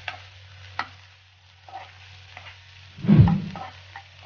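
Sliced onions and fennel seeds frying in hot oil in a pan, stirred with a metal spatula, giving light scrapes and clicks over a steady low hum. One loud dull thump comes about three seconds in.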